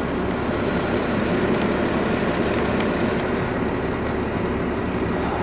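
Mack Mcneilus garbage truck's engine idling steadily while the truck stands still.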